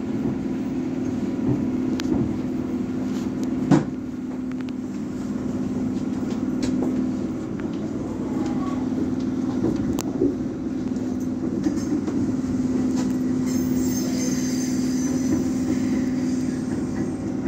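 Inside a moving Meitetsu electric passenger train: a steady running hum, with a few sharp knocks from the wheels and, from about 14 seconds in, faint high-pitched tones.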